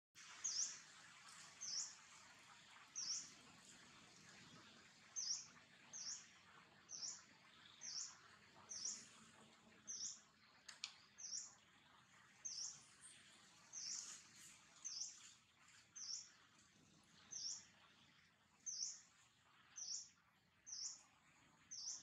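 A bird repeating one short, high chirp about once a second, over a faint outdoor background hiss.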